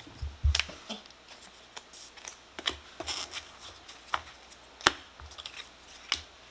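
Pokémon trading cards, plastic card sleeves and pack wrappers being handled: scattered light taps, clicks and rustles.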